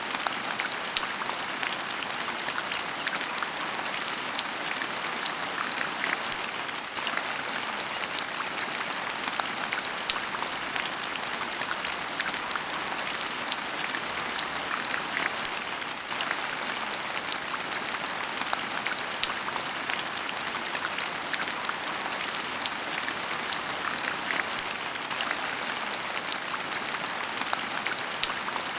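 Heavy rain falling steadily: an even hiss dotted with many sharp, separate drop ticks.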